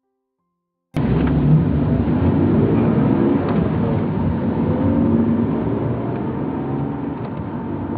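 Road traffic noise with a car engine running, cutting in suddenly about a second in after near silence.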